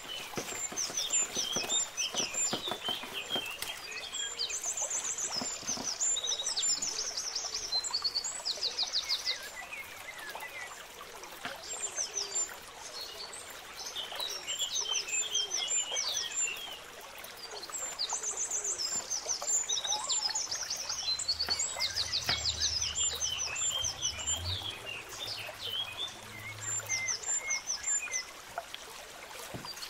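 Small birds chirping and twittering in quick high trills, in bunches that come and go. Under them are short wet clicks and squelches of a gloved hand mixing thick pakora batter, and snips of multi-blade herb scissors cutting green chillies.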